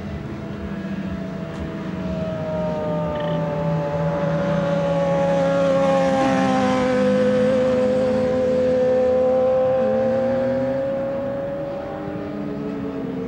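Sport motorcycle engine running at steady revs as the bike rides past, growing louder toward the middle and fading again near the end, its pitch holding nearly level.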